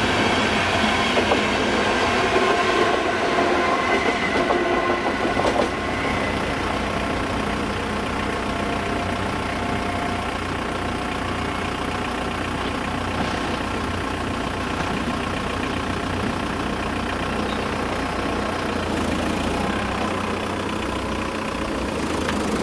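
A ČD double-deck electric train passes over a level crossing with a rumble and clatter of wheels for the first six seconds or so. After it has gone, a steady sound carrying several level tones holds until near the end, consistent with the crossing's warning signal still sounding, with road traffic waiting at the barrier.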